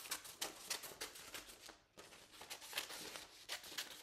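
Scissors snipping repeatedly through a sheet of paper, with the paper rustling as it is turned, and a short pause about halfway through.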